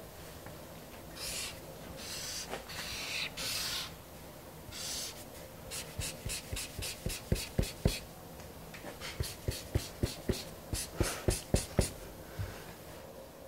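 Felt-tip marker drawing on sketchbook paper: a few longer strokes, then two bursts of quick back-and-forth scribbling as an area is hatched in.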